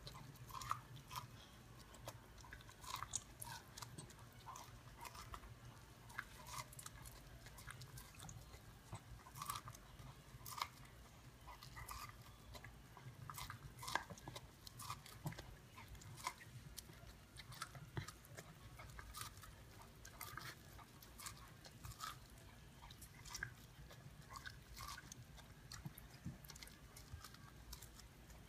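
Dachshund nibbling kernels off a cooked corn cob: many small, crisp crunching bites and chewing at an irregular pace, over a faint low hum.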